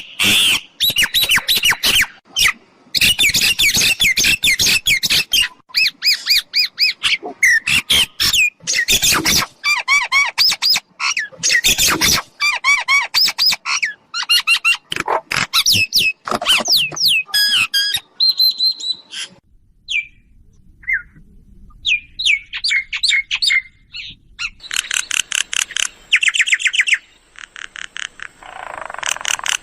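Mynas calling: rapid runs of chattering, squawking and whistled notes. The calls thin out about two-thirds of the way through, then resume in fast bursts near the end.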